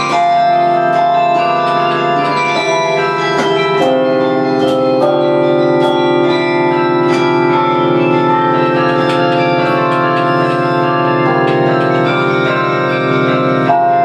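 A 47-bell Paccard carillon played from its baton keyboard: bells struck one after another in a quick, continuous run of notes, each tone ringing on and overlapping the next.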